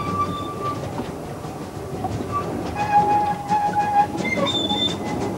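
Narrow-gauge steam locomotive and train running along the line, with a steady rattle and clatter of wheels on the track. Twice, a held high-pitched squeal rises over it: once fading out about a second in, and again from about three to five seconds in, as the wheels grind round the curve.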